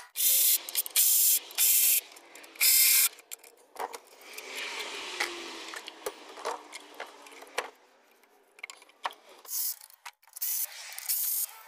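Ratchet wrench working on the ignition coils' hold-down bolts on top of a Ford 6.2 V8: four short rasping bursts of ratcheting, then a run of scattered clicks from tools and parts, and more short bursts near the end.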